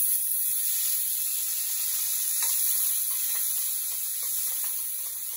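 Chopped onions sizzling steadily as they fry in hot oil with crushed garlic and fenugreek in a metal kadai, stirred with a steel ladle.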